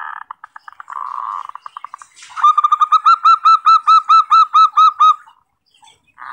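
Zebra dove (perkutut) calling: a rolling trill that breaks into quick pulses, then a loud run of about a dozen arched cooing notes, roughly five a second, ending about five seconds in. A new phrase starts right at the end.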